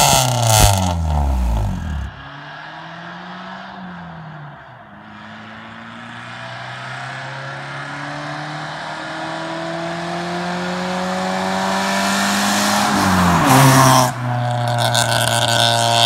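Honda Accord (CB7) four-cylinder engine on its leaking original exhaust. First its revs fall away at the tailpipe. Then, heard from a distance, the car accelerates toward the listener, the engine note climbing steadily and growing louder, with a brief dip like a gear change about three seconds before the end, after which it is much louder.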